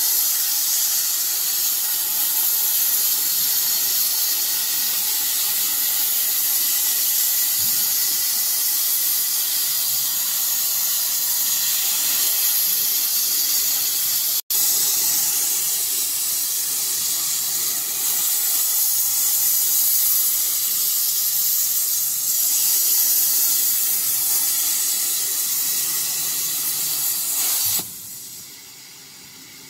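CNC gantry plasma torch cutting metal plate, a loud, steady hiss of the plasma arc. It breaks off for an instant about halfway and drops to a much quieter level near the end.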